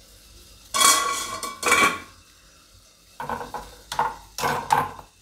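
Metal idli plates and stand clanking against each other and the steamer pot as they are set in to steam. Two loud ringing clatters come about a second apart, followed by several lighter clinks.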